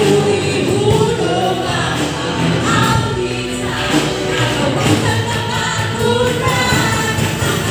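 Live praise-and-worship music: many voices singing a worship song together over instrumental accompaniment.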